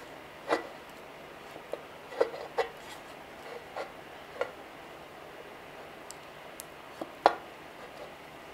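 Several light clicks and taps of metal on metal as a timing cover is worked onto the front of a Pontiac 350 V8 block and seated on its locating post.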